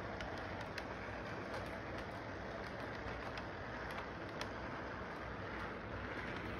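Model train cars rolling along the track in a steady rumble, with faint irregular clicks as wheels cross the rail joints.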